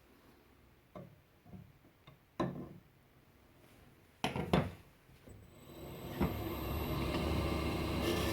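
A few sharp knocks and clunks of tools or parts being handled. Then, about five and a half seconds in, an electric motor, most likely the wood lathe's, starts and runs up, its hum and whine growing steadily louder.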